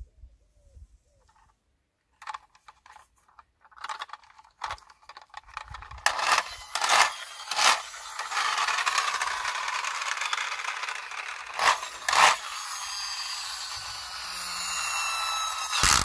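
Plastic toy school bus pushed over gritty pavement: its plastic wheels and body scraping and rattling on the grit. Small clicks about two seconds in, then a steady scraping broken by several sharp clacks, the loudest near the end.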